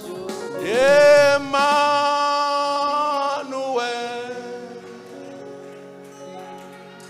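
Gospel worship singing: a man's voice swoops up into a long held note about a second in, then sings a shorter, lower note, over a steady sustained instrumental backing that fades down toward the end.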